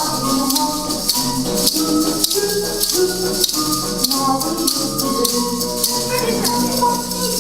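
Dance music with a bouncy melody, and many children's toy hand rattles shaken along to it in a steady rattling.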